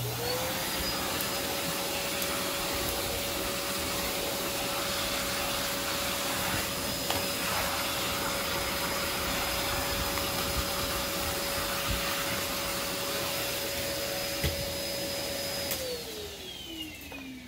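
Vacuum cleaner switched on, its motor whine rising quickly to a steady pitch over the rush of suction, running for about sixteen seconds, then switched off and winding down near the end.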